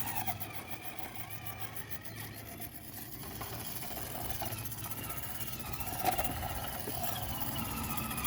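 RC rock crawler's 550-size 13-turn brushed motor and geared drivetrain whining at crawling speed, the pitch drifting up and down with the throttle. A single sharp knock about six seconds in.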